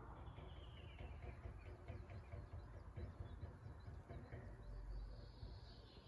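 Faint birdsong: short, repeated high chirps over a low steady background rumble.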